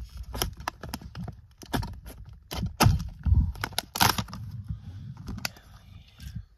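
Knife cutting open the stiff plastic packaging of a USB outlet: irregular cracks, clicks and crinkles of the plastic with handling knocks, and a heavier thump about three seconds in.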